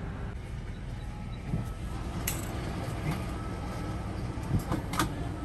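Car engine running at idle as the car rolls slowly forward, heard from inside the cabin as a steady low rumble, with a few short sharp clicks about two seconds in and again near the end.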